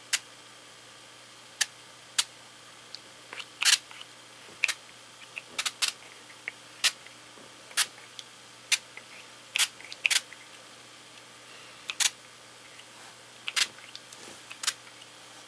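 Small finger-pump mist sprayer of Brutus Monroe Surface ink spritzing onto tiles: short, sharp spritzes about once a second, irregular, some in quick pairs.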